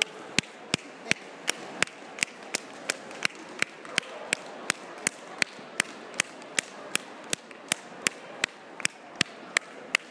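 One person clapping hands in a steady rhythm close to the microphone, about three sharp claps a second, over a faint murmur of a large hall.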